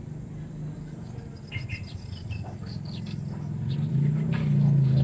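A steady low motor-like rumble that grows louder over the last second or two, with a few faint bird chirps about a second and a half in.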